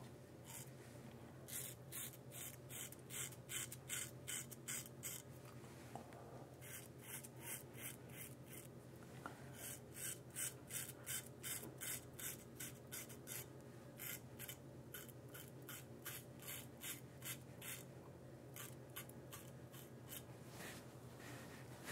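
Rockwell R1 double-edge safety razor scraping through lathered stubble in short quick strokes, about three a second, in several runs with brief pauses between.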